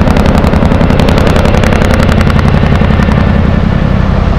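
Boeing CH-47 Chinook tandem-rotor helicopter's blades beating in a rapid, steady chop that fades about three seconds in, over a low steady rumble.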